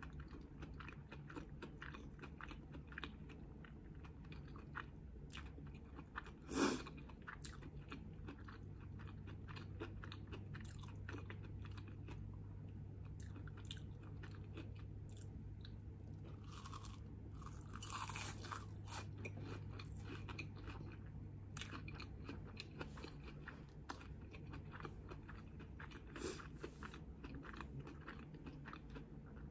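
Close-up mouth sounds of chewing a crunchy Korean corn dog with a fried panko crust: a run of many small crisp crunches, with one louder crunch about a quarter of the way in.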